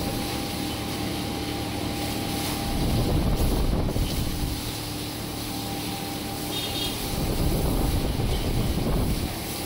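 Garden hose spraying water onto a bull's hide, a steady hiss, with wind buffeting the microphone in low rumbling gusts about three seconds in and again near the end.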